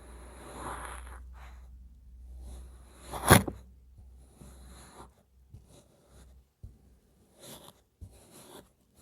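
Kinetic sand being handled and cut: soft crumbling and scraping rustles, with one sharp, loud tap about three seconds in, then a run of short scrapes and taps.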